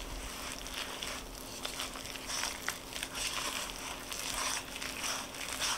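Wooden spoon stirring thick, floury peanut butter bread batter in a mixing bowl: repeated scraping strokes, about one or two a second, as the buttermilk is worked into the dry mix.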